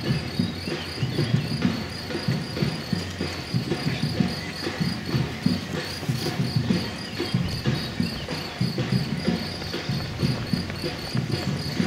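Footsteps of many runners on a paved path, a dense, uneven stream of soft thuds, with a cricket chirping steadily in a fast, regular high pulse behind them.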